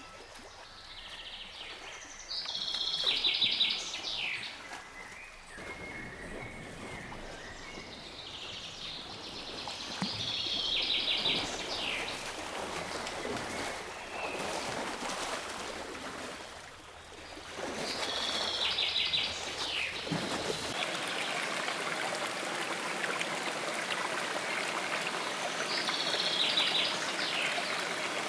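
Birdsong over a running stream: one bird repeats the same short, high, fast trill about every eight seconds, with the steady rush of flowing water beneath.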